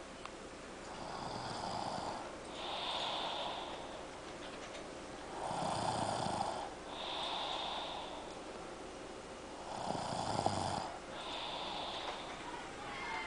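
Snoring: three snored breaths about four seconds apart, each inhale followed by a breathy exhale. The second and third inhales are louder and lower.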